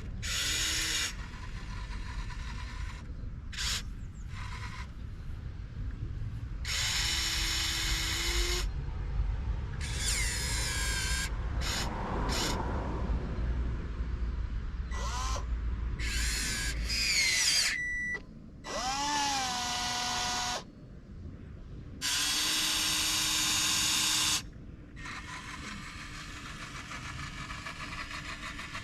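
Small electric motors and hydraulic pump of a radio-controlled model excavator running in repeated bursts of one to three seconds, whining, some runs spinning up or down in pitch as the model digs.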